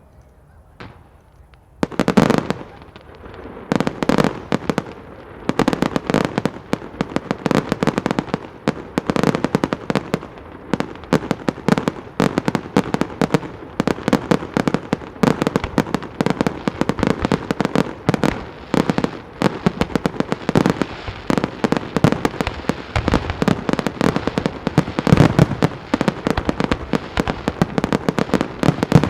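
A professional fireworks display: after a short lull, rapid volleys of bursting shells and firecracker-like reports begin about two seconds in and continue densely, several bangs a second.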